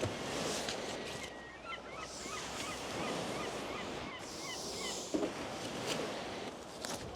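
A bird calling, a quick series of short chirps lasting a few seconds, over steady outdoor background noise.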